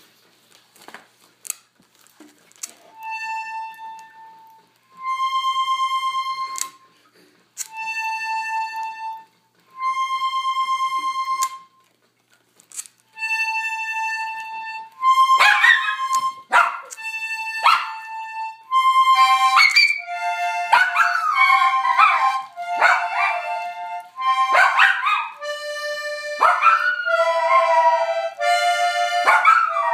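Accordion playing slow held notes that alternate between two pitches, each held about a second and a half. About halfway in, a small dog joins, howling and yipping in wavering, sliding tones over the notes.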